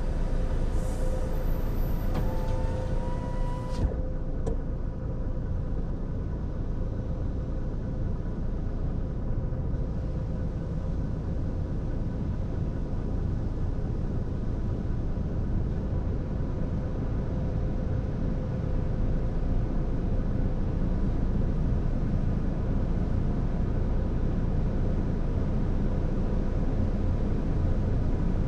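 Steady low rumble of a car idling and creeping forward, heard from inside its cabin. A faint thin tone rises briefly and cuts off about four seconds in.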